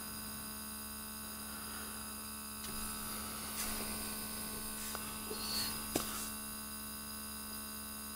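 ArOmis Solum Lux Eros nebulizing diffuser's air pump running with a steady electric hum, with a few faint taps around the middle.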